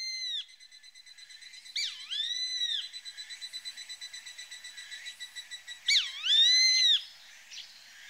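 Grey-faced buzzard calling: three loud whistled calls, each a quick upward flick then a long arched note that rises and falls. The last call comes about six seconds in. A faint, fast pulsing carries on between the calls.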